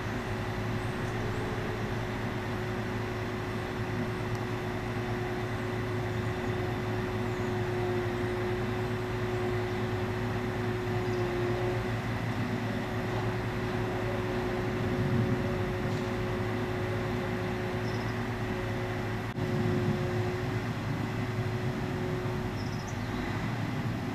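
Truck-mounted knuckle-boom crane running steadily, its engine and hydraulics giving a constant drone with a held tone.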